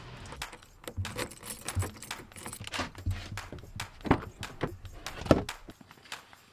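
Keys jangling and a run of handling clicks and knocks as a pickup truck's door is unlatched and opened and gear is loaded. Two louder thumps come about four and five seconds in.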